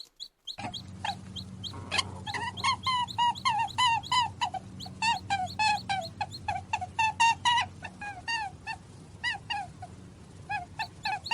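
An animal giving a rapid series of short, high-pitched cries, about two or three a second, each dipping in pitch. Dog-like yips or whimpers run over a steady low hum.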